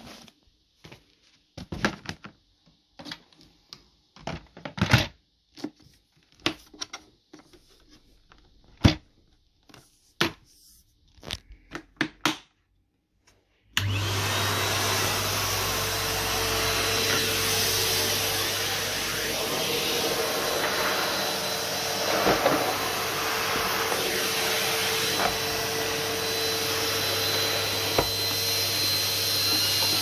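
Scattered clicks and knocks of plastic parts as a Numatic Henry XL vacuum cleaner is handled and put together, then about halfway through its motor switches on abruptly and runs steadily with a constant low hum and a thin whine.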